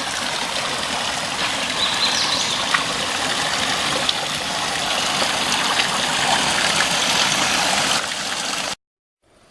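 Martin Creek Falls: a steady rush of falling water that cuts off suddenly near the end.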